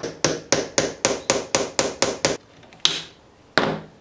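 Hammer driving a nail into a thin wooden runner through a pre-drilled pilot hole: a run of about ten quick, light taps at roughly four a second, then two harder, spaced blows.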